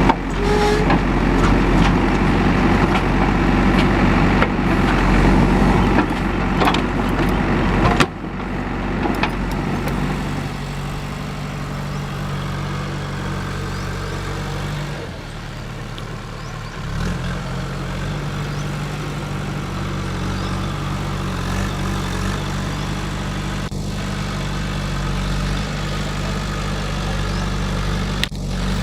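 A heavy vehicle's engine running steadily, busier and louder for the first eight seconds, then dropping suddenly to a steady, lower running note.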